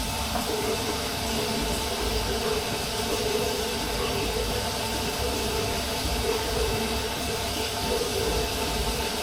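Bathroom sink faucet running full, its water pouring into the basin and down the new pop-up drain as a steady rush that starts suddenly. The faucet's aerator screen is off, so the stream comes out unaerated.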